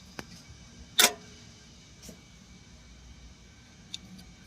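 A few sharp clicks from a truck being tried on the key, the loudest about a second in with a short ringing after it; the engine does not crank or run, a no-response starting fault.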